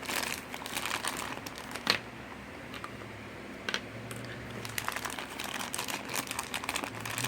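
Plastic toy packaging crinkling and crackling as it is handled, dense at first, quieter in the middle with a few sharp clicks, then crinkling again toward the end.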